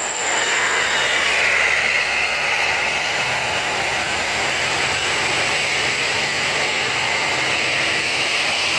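Steady rushing noise of road vehicles going by, engine and tyres, with no horn sounding.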